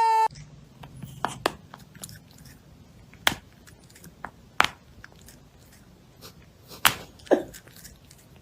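A cat chewing, with sharp crunches at irregular intervals of about a second or more, and two close together near the end.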